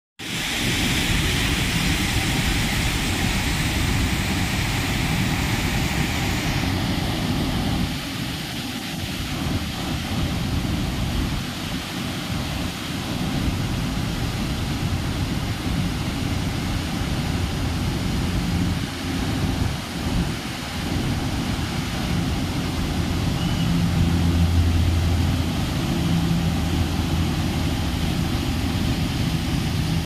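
Waterfall and white-water rapids rushing through a rocky gorge: a steady roar with a deep rumble underneath. The hiss of the water is brighter for the first six or seven seconds, then turns duller.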